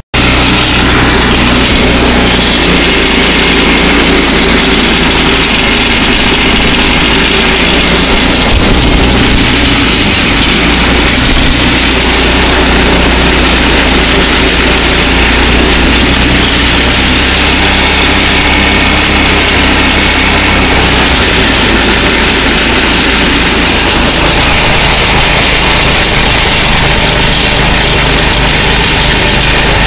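Go-kart engine running steadily as the kart is driven, loud and close, mixed with a constant rush of road and wind noise.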